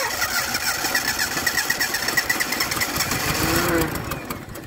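Fiat 127's 100GL four-cylinder engine, unused for over 15 years, cranking over on its starter motor in a fast even rhythm, then stopping near the end.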